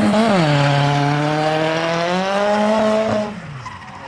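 Nissan Skyline R33 drift car's engine running hard as it slides past, with tyre noise. The revs drop sharply about half a second in, then climb steadily. A little after three seconds the engine note cuts and the sound falls away as the car pulls off.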